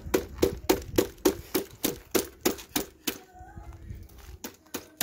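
An even series of sharp metallic clicks or taps, about three a second, that pauses for about a second and a half after three seconds and then resumes.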